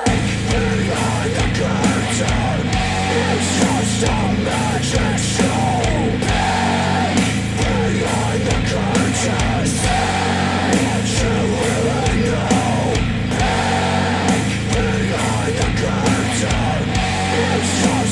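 Rock music with a vocal line, played loud and steady through KEF R3 bookshelf speakers driven by a NAD C 338 integrated amplifier.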